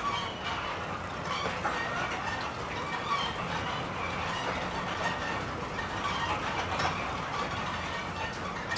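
Steady low rumble of a running fairground ride, with faint scattered voices in the background.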